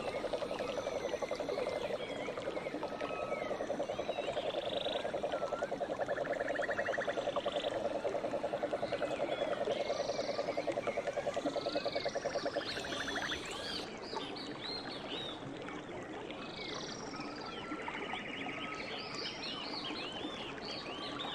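A frog calls in a fast, steady pulsed trill, low in pitch, and falls silent about two-thirds of the way through. Many birds chirp, whistle and trill throughout.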